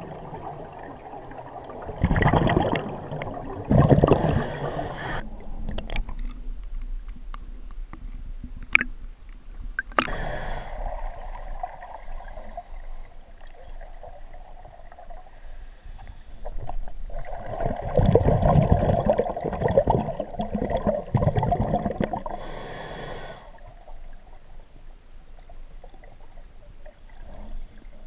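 A scuba diver's regulator heard underwater. Surges of exhaled bubbles rumble and gurgle past the microphone, twice near the start and once longer in the second half, with short hisses of inhaling between them and a couple of sharp clicks.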